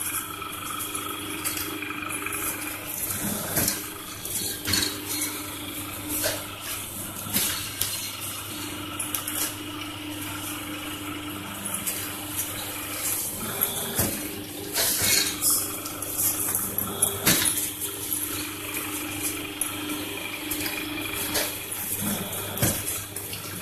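Paper plate making machine running: a steady hum with irregular clicks and clattering knocks throughout, the loudest a little past the middle, as the press works and paper sheets and plates are handled.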